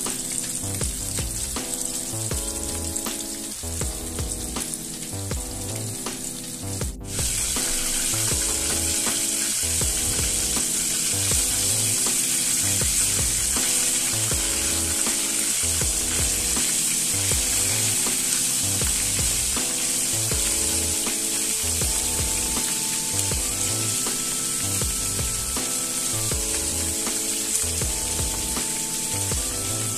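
Flour-coated chicken pieces deep-frying in hot oil, giving a steady sizzle that grows louder about seven seconds in. Background music with a repeating bass line plays underneath.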